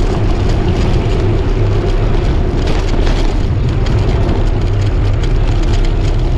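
Steady wind buffeting the microphone of a moving bicycle, a loud low rumble with road noise mixed in.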